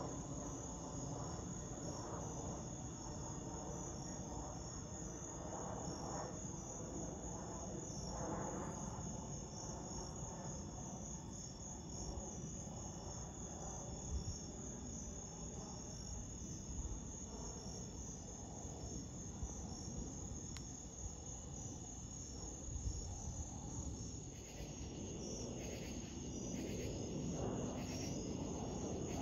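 Crickets chirping in a steady high chorus over the low rumble of a jet airliner passing high overhead. Near the end a second pulsing call joins in and the rumble grows louder.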